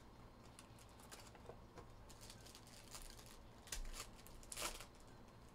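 Soft rustling and crinkling of clear plastic wrap being pulled off a trading-card box, with cardboard handling. Two louder crinkles come a little under a second apart near the end.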